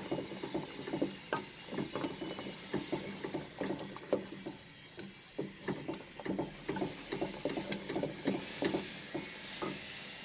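Wooden dal masher churning and mashing cooked moong dal and green peas in an aluminium pressure cooker: quick, irregular knocks of wood against the pot's bottom and sides along with wet stirring. The knocking eases off for about a second halfway through.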